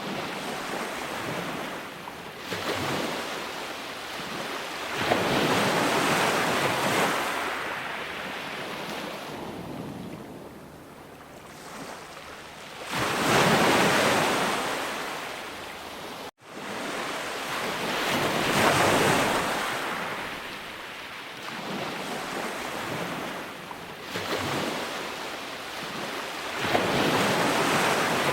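Sea waves breaking and washing ashore, each surge swelling and ebbing away every few seconds. The sound cuts out for an instant a little past halfway.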